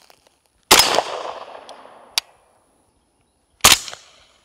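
Two single shots from a 9mm Kalashnikov-pattern carbine. The first, about a second in, is unsuppressed and has a long echoing tail. The second, near the end, is fired through a Silencer Central Banish 46 suppressor and fades faster. A single sharp click falls between them.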